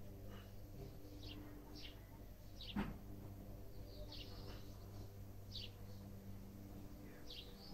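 A small bird giving short, high chirps every second or two over a steady low hum, with a single sharp knock about three seconds in.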